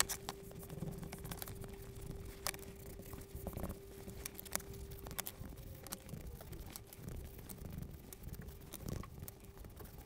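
Faint rubbing and rustling of a paper towel being wiped over leather pieces, with scattered light clicks and taps as the pieces are handled and set down on a cutting mat. A faint steady hum lies underneath.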